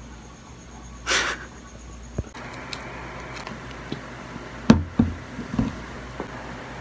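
Handling noises while an eye is rinsed with saline from a plastic squeeze bottle and a towel is pressed to the face: a short rush about a second in, then a cluster of sharp knocks and taps, the loudest a few seconds later.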